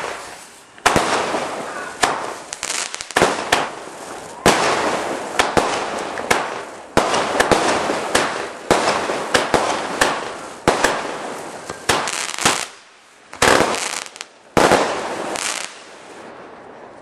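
Bright Star "Bombay Nights" firework going off: a loud opening bang, then a quick run of sharp shots, several a second at times, each trailing off in crackle. The shots die away near the end.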